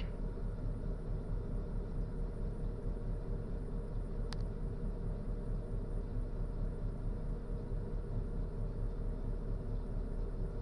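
Steady low background rumble with a faint hum, and a single sharp click about four seconds in.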